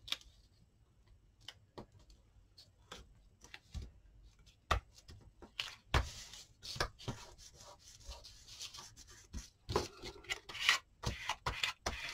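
Hands pressing and smoothing freshly glued paper onto a baking paper envelope: soft paper rubbing and rustling with scattered light taps and clicks. Near the end the rubbing gets louder and denser as a plastic card is run over the paper to press it down.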